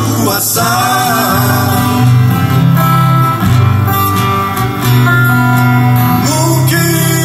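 Live band playing a Malay rock ballad: strummed acoustic guitars over a steady bass, with a male voice singing.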